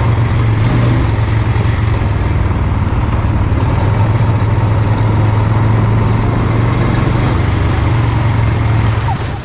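Quad bike (ATV) engine running steadily under way, a loud constant low hum with rushing noise. It cuts off abruptly near the end.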